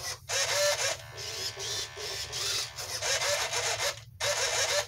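Standard-size RC servos, powered from a 1S 3.7 V LiPo, whirring through a series of quick moves: several short bursts of gear-motor whine, each under a second or so, with brief pauses between them.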